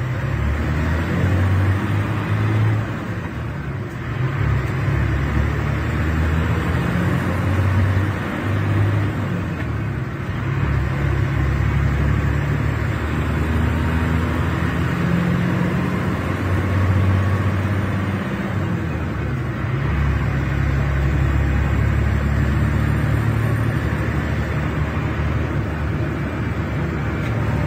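Scania K380 bus's DC12 06 inline six-cylinder diesel engine running, a steady low drone whose pitch and loudness shift a little a few times.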